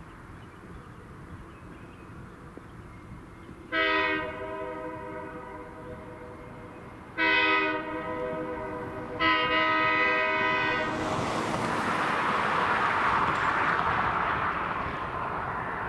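Diesel locomotive sounding its horn in three blasts a few seconds apart, the third the longest. The rumble of the approaching train then grows louder.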